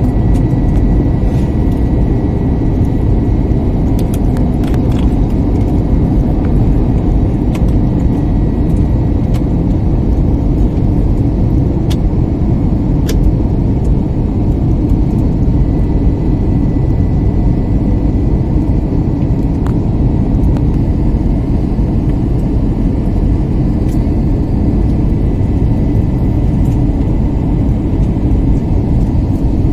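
Steady cabin noise inside a jet airliner on its descent: the deep rumble of the engines and rushing air, with a faint thin whine above it.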